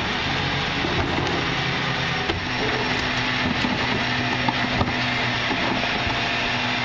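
Garbage truck's diesel engine running steadily at the curb, with a steady hum joining about two and a half seconds in. A few light knocks sound as cardboard is loaded into the rear hopper.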